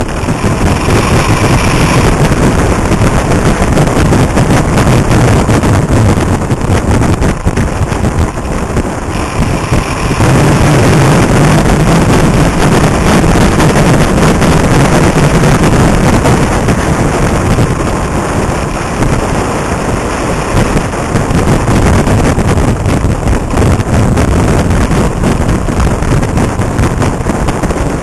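Heavy wind rushing over the microphone of a camera riding on a motorcycle at road speed, with the motorcycle engine running underneath. The engine rumble grows louder about ten seconds in and eases off twice.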